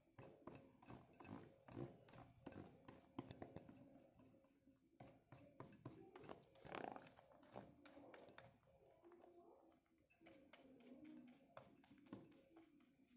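Faint scratchy clicking and tapping of a paintbrush dabbing paint onto a thin plastic container, with light handling of the container.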